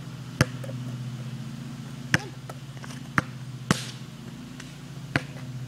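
A basketball bouncing on asphalt, about five separate sharp bounces spaced unevenly, over a steady low hum.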